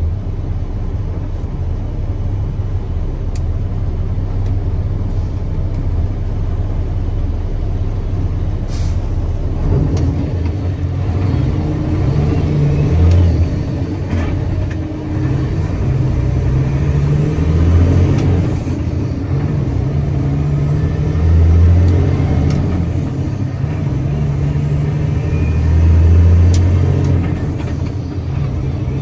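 Mack Granite truck's diesel engine running under way, steady at first, then revving up and dropping back four times as the driver works through the gears.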